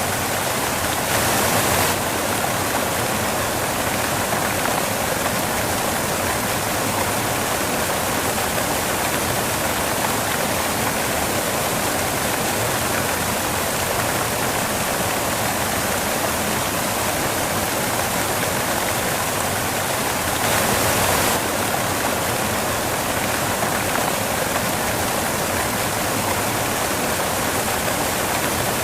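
Steady white noise, a rushing hiss like running water, with two brief slightly louder swells, about a second in and about twenty seconds in.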